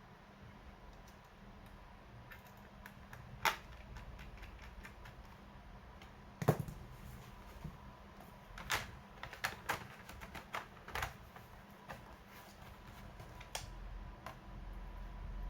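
Irregular clicks and taps from the plastic case of a laptop being handled, with one louder knock about six and a half seconds in.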